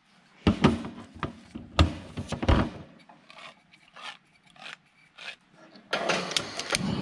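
Handheld manual can opener clamping onto a small can of black olives and cranking round the lid: sharp clicks and metal grinding, loudest in the first few seconds and then fainter ticking. Near the end a louder, continuous noise starts up.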